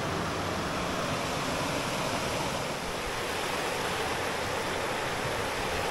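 Fast creek water rushing over rocks and small rapids: a steady, even rush.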